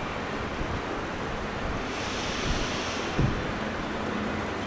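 ÖBB Railjet train at the platform: a steady rumble and rush of noise over a low hum. A brief hiss comes about two seconds in, and a single thump about three seconds in.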